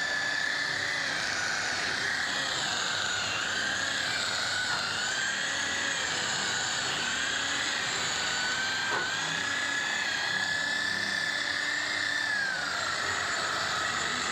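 Handheld electric rotary polisher running steadily while buffing rubbing compound on a car's paint, its motor whine dipping in pitch and recovering several times as the pad is pressed on and eased off.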